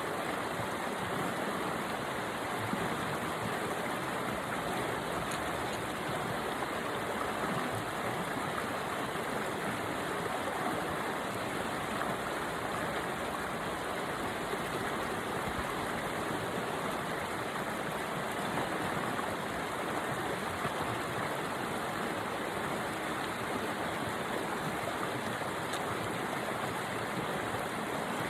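Mountain river rushing, a steady unbroken sound of flowing water.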